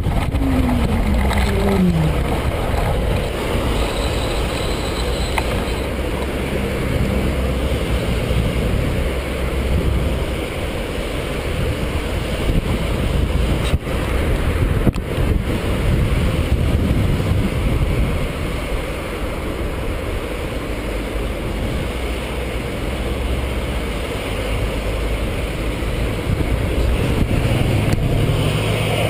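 Steady road traffic on a bridge mixed with wind on the handlebar-mounted camera's microphone, with a short falling tone about a second in.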